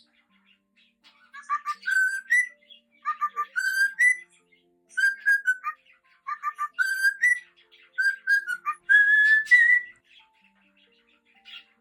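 Cockatiel whistling its song: a short phrase of clipped notes ending in rising whistles, repeated about six times with brief pauses.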